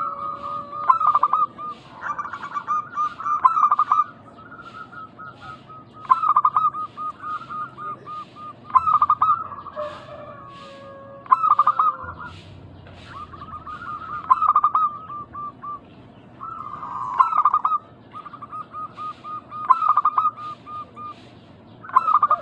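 Zebra doves (perkutut) cooing: phrases of quick short notes, a new phrase every two or three seconds, with more than one bird calling at once at times.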